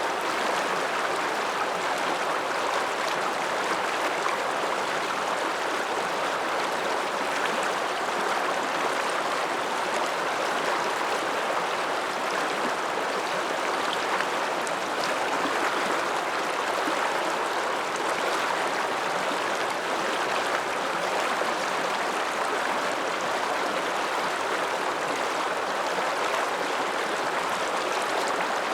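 Ramsauer Ache, an Alpine mountain river, rushing steadily: an even, unbroken wash of water sound.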